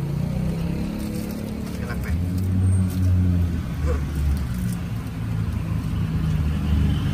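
A motor vehicle's engine running nearby, a steady low hum that grows louder about two seconds in, over the light sizzle of churros dough frying in a wok of hot oil.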